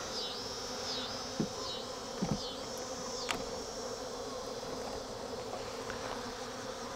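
Honey bees buzzing around an opened hive: robber bees taking honey from a colony that has absconded, a steady hum with a few light clicks. A high wavering tone that keeps dipping in pitch runs above the hum.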